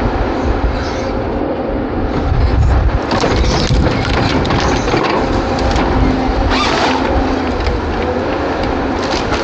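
A timber harvester's engine and hydraulics running steadily under load, with wood cracking and crunching in bursts a couple of seconds in, again about two-thirds of the way through, and near the end, as trees and branches are cut and broken.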